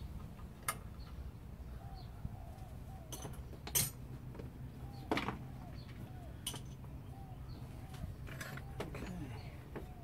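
Scattered sharp clicks and knocks of a socket wrench and the metal seat belt fittings being handled while a 10 mm seat belt anchor bolt is undone, the loudest a little before four seconds in.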